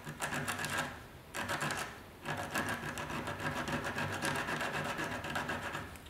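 Coarse sandpaper rubbed quickly back and forth by hand on a metal radiator's core and tank seam, in three spells of rapid scratching strokes, the last one about three and a half seconds long. The metal is being scuffed clean around a pinhole leak so that solder will stick.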